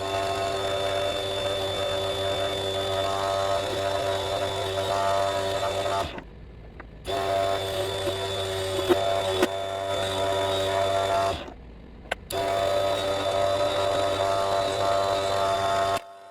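Vevor HS001 mini wood lathe's motor running at a steady speed with a constant whine and a few sharp clicks. The sound drops away suddenly and briefly twice, then returns unchanged.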